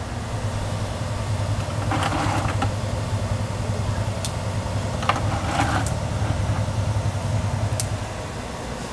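A steady low mechanical hum, with a handful of sharp clicks and brief handling noise from work on the outboard's lower unit as the gear case's top and bottom screws are refitted after filling with gear lube.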